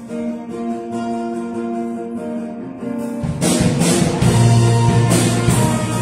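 Live worship band playing an instrumental song intro. Soft, held guitar and keyboard chords open it, then about three seconds in the drums and bass guitar come in and the music gets louder.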